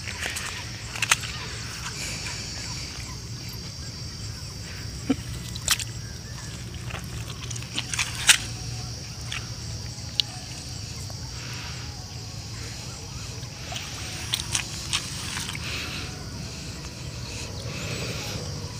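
Outdoor evening ambience over a flooded field: a steady high-pitched hum of insects, with a low rumble underneath. Scattered sharp clicks and rustles come about a second in, around six and eight seconds in, and again near fourteen seconds.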